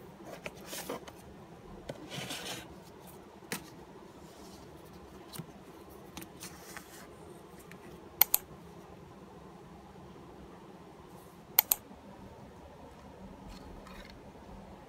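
Desk stationery being handled: plastic sticker sheets and a clear plastic tape box rustling, with a few light taps. Twice in the second half comes a sharp double click, the loudest sounds, over a faint steady hum.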